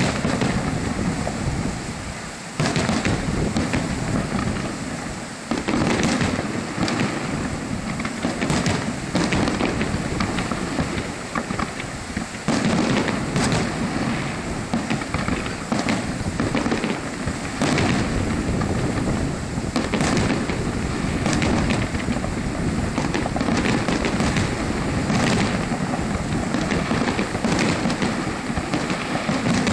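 Aerial firework shells bursting one after another every few seconds. Each is a sudden bang followed by a long rumbling tail, and the tails run together into a continuous rumble.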